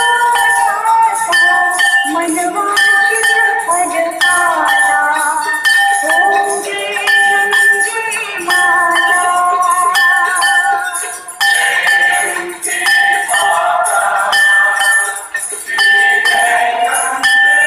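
Devotional aarti singing with bells jingling and ringing throughout, held melodic notes over a steady shaking of bells.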